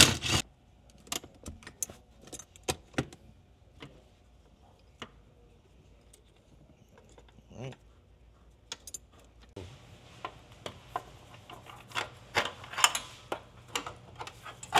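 Hand socket ratchet clicking in short irregular runs as the nut on the parking-brake cable equalizer is undone, with light metallic clinks of the cables and hardware being handled. From about ten seconds in, a steady low hum sits under further clicks.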